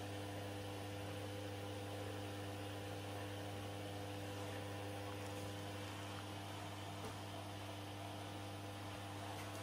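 Steady low hum of a commercial front-loading washing machine running early in its wash cycle, the drum turning slowly.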